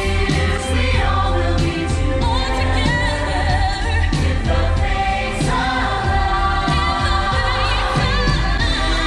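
Holiday show soundtrack music with a choir singing long, wavering held notes over a strong bass, played loud over the park's speakers.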